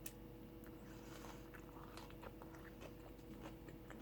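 A person chewing food with the mouth close to the microphone: faint, irregular small clicks and soft wet sounds, over a faint steady hum.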